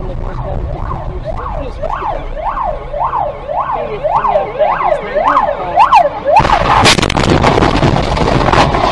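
Ambulance siren in a fast up-and-down yelp, about two rises and falls a second. About six seconds in it is cut off by a sudden loud, noisy crash with sharp knocks, a vehicle collision.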